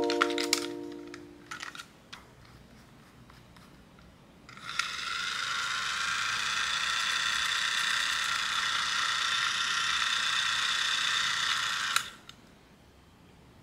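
Plarail battery toy locomotive's small electric motor and gearbox whirring steadily with its wheels spinning free in the air. It is switched on about four and a half seconds in and cuts off suddenly about twelve seconds in.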